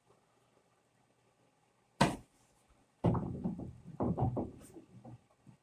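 Sliding barn door and its hanging hardware knocking and clunking as the door is handled: one sharp knock about two seconds in, then a couple of seconds of uneven thumps and rattles.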